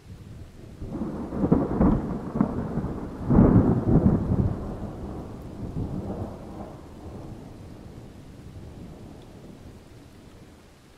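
A thunder rumble that swells over the first couple of seconds, peaks with several loud cracks, then rolls on and slowly fades away.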